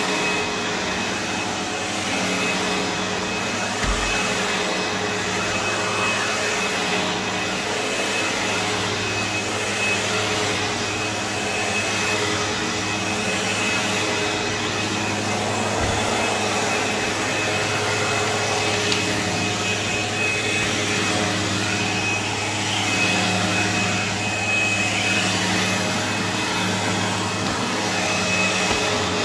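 Sebo Automatic X4 upright vacuum cleaner running steadily as it is pushed over carpet: a constant motor hum with a thin high whine on top.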